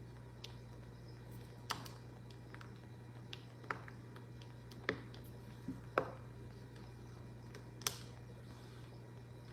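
Scattered light clicks and taps, about eight at irregular intervals, the loudest about six seconds in, over a steady low hum.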